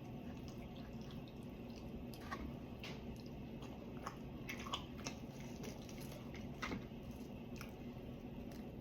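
A person chewing and biting into fried chicken: scattered short smacks and crunches, over a steady low hum.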